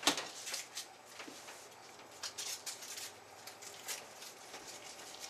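Small kitchen handling noises: a sharp clack right at the start, then scattered light clicks and paper-like rustles as a stick of butter is unwrapped by hand.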